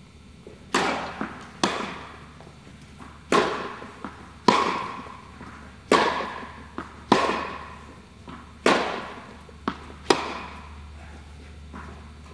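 Tennis rally in a reverberant indoor hall: about eight sharp racket strikes on the ball, one every second or so, each ringing on in a long echo, with fainter ball bounces between them. The strikes stop about two seconds before the end.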